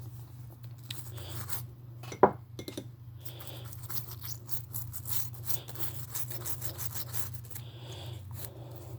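Small RC car parts being handled and rubbed clean by hand: light scraping, rubbing and small clicks over a steady low hum, with one short squeak about two seconds in.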